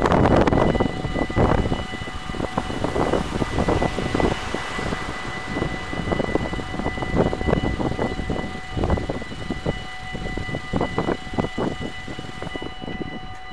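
Dutch railway level crossing warning bells ringing steadily while the barriers are down, a sign that a train is approaching. Gusts of wind buffet the microphone underneath.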